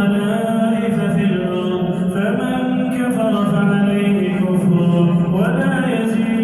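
A man reciting the Quran in a slow, melodic chant (tartil), drawing out long vowels on held notes. The pitch glides up about five seconds in.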